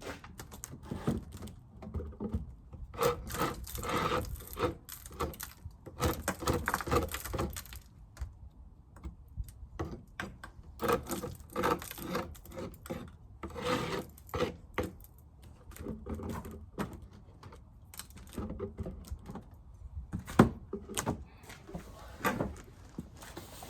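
Wooden beehive frames scraping and rubbing against the hive box as they are handled and slid in, in repeated bouts, with a sharp wooden knock about twenty seconds in.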